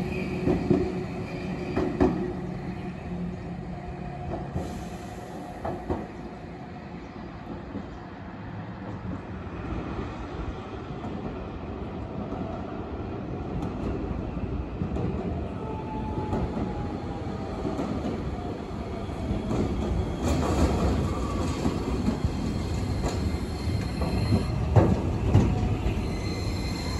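An Iyo Railway 5000-series low-floor tram with Toshiba IGBT VVVF drive runs past on street track. Its motor and wheel noise grows steadily louder as it approaches, with a falling electronic whine partway through. Near the end it passes close with sharp clacks of wheels on the rails.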